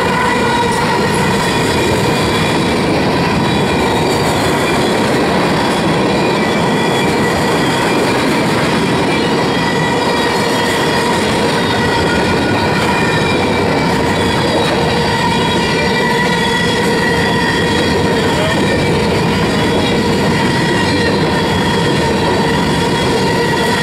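Union Pacific freight train's covered hopper cars rolling past, a steady rumble of wheels on rail with a continuous high wheel squeal ringing over it.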